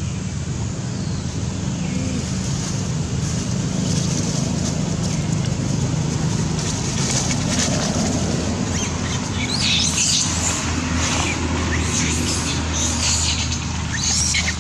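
Macaques squealing repeatedly, high-pitched, from about nine seconds in, over a steady low background rumble.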